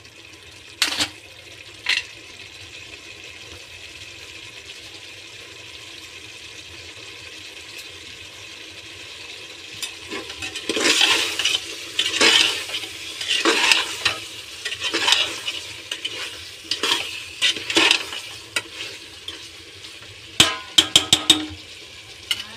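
Spiced mutton and masala sizzling as they fry in an open aluminium pressure cooker. About halfway through, a steel ladle scrapes round the pot in repeated strokes, roughly one a second. Near the end comes a quick run of metal clicks.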